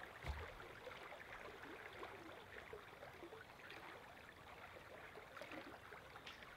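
Faint babbling of a shallow river, with a soft low thump shortly after the start.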